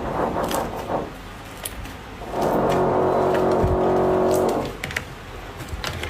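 Slime being pressed and squeezed, trapped air forced out in a loud buzzing squelch that lasts about two seconds, with scattered faint crackling clicks.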